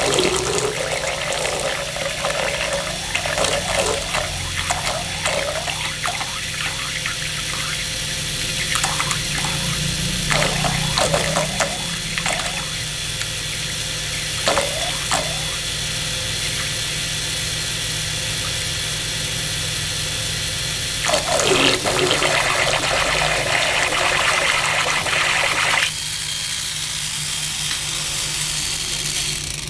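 Small homemade propeller drive, a 3 V DC motor turning a propeller through gears, spinning in a basin of water: a steady motor hum and whine under churning, splashing water. The splashing quietens abruptly near the end.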